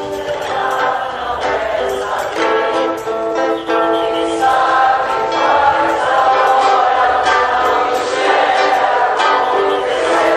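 Background music: a song with sustained choir-like voices over plucked-string accompaniment.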